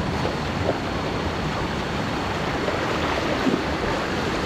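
Steady rush of stream water.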